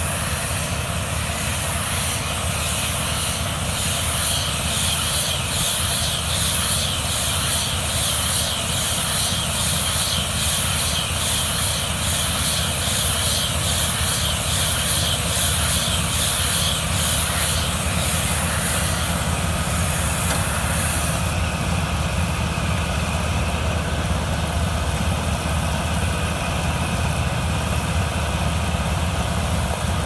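Tractor engine running steadily while towing a John Deere C451R baler-wrapper at work, the machinery giving a fast, high-pitched clatter over the engine's steady drone. The clatter eases off about eighteen to twenty seconds in.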